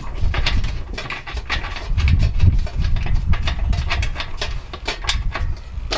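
Wing nuts being turned by hand onto carriage bolts inside a truck under-seat lockbox: scattered small metallic clicks and knocks, over a low rumble of handling.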